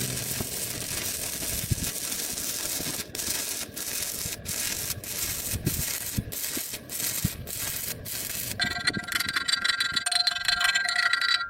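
Welding on steel: a steady crackling hiss, then from about three seconds in broken by short, regular pauses about every half second. About nine seconds in it gives way to abrasive grinding on metal, with several high ringing tones.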